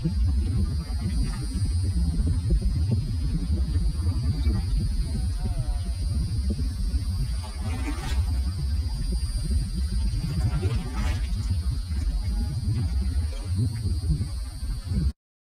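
Wind blowing across the microphone as a loud, uneven low rumble, with a faint steady high-pitched drone behind it; the sound cuts off suddenly near the end.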